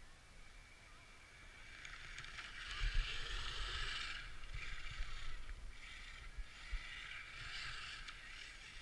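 Electric motor of an Axial Yeti Score 1/10-scale RC trophy truck whining as it is driven across snow, rising and falling in about four throttle surges, loudest about three seconds in.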